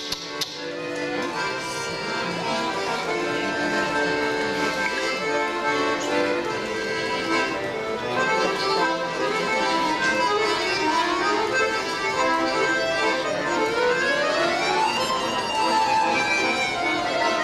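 Two accordions playing a duet, a melody over held chords. Near the end a quick run of notes climbs and then falls back.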